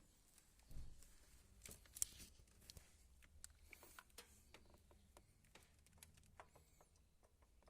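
Near silence in a small room, with scattered faint clicks and a soft thump about a second in.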